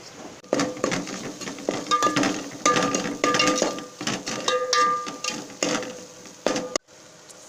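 A metal spoon scraping and knocking against a metal cooking pot, stirring spices into the curry masala, in a quick run of strokes that make the pot ring. It stops abruptly near the end.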